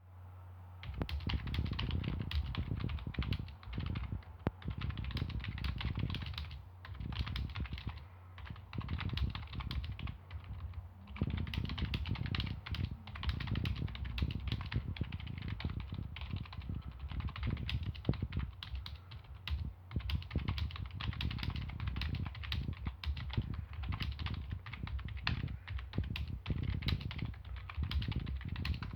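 Motospeed K70 non-mechanical (membrane) keyboard being typed on quickly: a fast, irregular run of key clicks starting about a second in, with a few short pauses.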